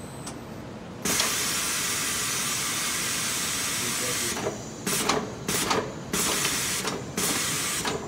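Compressed air hissing from a Hunter tire changer's pneumatic controls as its arms move: one long hiss starting suddenly about a second in and lasting about three seconds, then several short hisses in quick succession.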